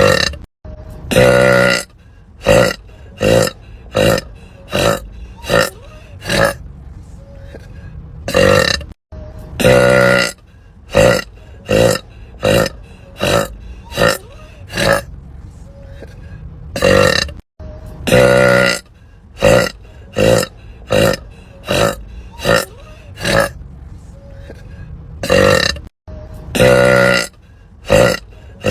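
A woman burping repeatedly: a shorter burp, then one long burp, then a string of about six short burps. The same sequence repeats about every eight and a half seconds, three times over.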